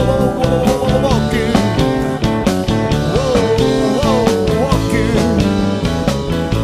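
Rock band music: drums keeping a steady beat under electric guitar and bass, with a lead line that slides and bends up and down in pitch.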